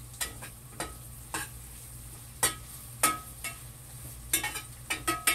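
Long metal spoon stirring sautéing vegetables and sliced sausage in a skillet, with irregular clinks and scrapes against the pan about once a second over a faint sizzle. A steady low hum lies underneath.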